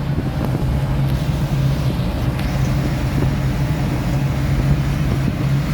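Steady low drone of a heavy vehicle's engine with road rumble, heard from inside the cab while driving.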